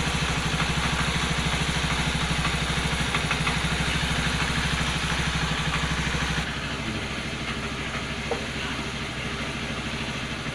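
A small motorcycle engine idling steadily with a fast, even pulse; the sound drops a little in level about six and a half seconds in.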